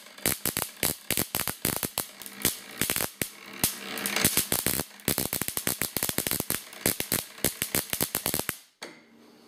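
Ruhmkorff induction coil sparking across the gap between two brass ball electrodes, a rapid, irregular crackle of snapping discharges. It cuts off suddenly near the end.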